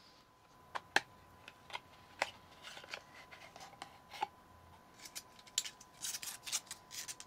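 An irregular string of sharp clicks and short scraping rustles as small objects are handled close to the microphone, coming thicker and faster near the end.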